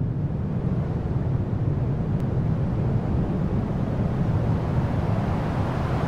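Wind rushing over the microphone of a camera carried by a paraglider in flight: a steady low rumble of airflow noise.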